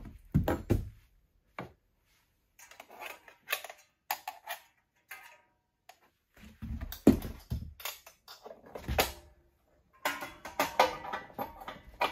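Irregular metal clinks, knocks and rattles of hand tools and exhaust springs against a snowmobile's muffler as the springs are worked off, with short pauses between. The clinks come thickest about ten seconds in, some with a brief metallic ring.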